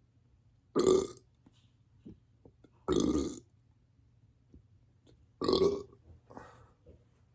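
A person burping on command from a bloated stomach: three loud burps about two seconds apart, then a fainter fourth near the end.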